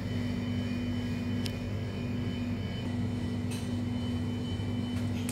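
Steady low mechanical hum with a few faint, brief ticks.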